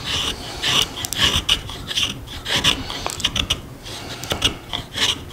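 Fixed-blade knife shaving thin curls down a wooden stick to make a feather stick: a series of short scraping strokes, about two a second.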